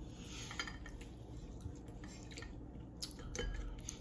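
Cutlery clinking and scraping against plates while eating: light, scattered clicks, a few more of them near the end.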